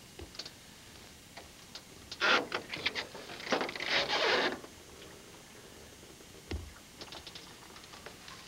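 Rustling and scraping in dense marsh grass and brush as it is pushed aside, loudest in a run of rough bursts from about two to four and a half seconds in, with scattered clicks and a dull thump about six and a half seconds in.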